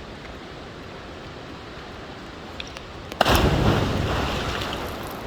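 A steady rush of water, then about three seconds in a sudden loud rush of noise that fades over about two seconds.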